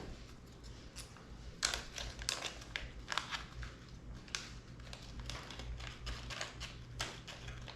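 Small plastic parts bag crinkling and rustling in irregular short crackles as it is handled to get tiny washers out.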